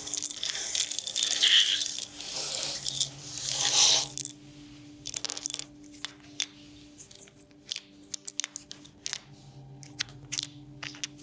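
A heap of small Scrabble-style letter tiles swirled and shuffled by hand on a tabletop: a dense clatter for about four seconds. After it come scattered single clicks as tiles are picked out one at a time and set down.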